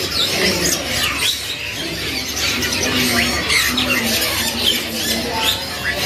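Chorus of caged small birds, zebra finches among them, chirping and calling all at once: many quick, high, overlapping chirps and short downward-sliding calls, with a few lower drawn-out notes in the middle.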